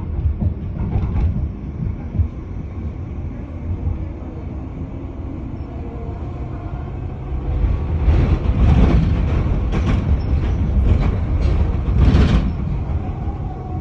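Capital Line light-rail train running, heard from inside the car: a steady low rumble, with a louder stretch of rushing, rattling noise in the second half that fades near the end.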